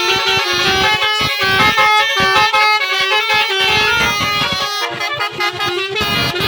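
Basuri multi-tone bus air horn sounding a 'telolet' melody: loud horn notes that step up and down in pitch in quick succession, with brief breaks between some notes.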